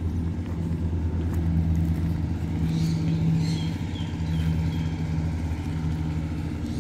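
The engine of a tracked rice-field spray vehicle idling with a steady low hum.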